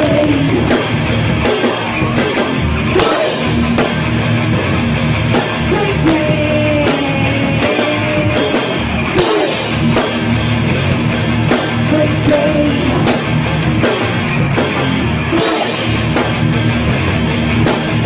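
Rock band playing live: electric guitars, bass guitar and a drum kit, with a woman singing lead into the microphone.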